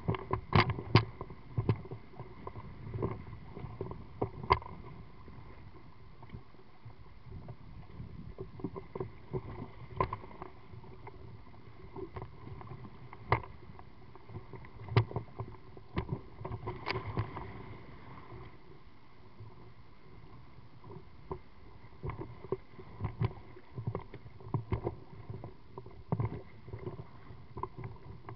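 River rapids rushing around a one-man inflatable pontoon, with waves splashing and slapping against the boat in frequent sharp knocks. The knocks thin out for a few seconds past the middle, then pick up again.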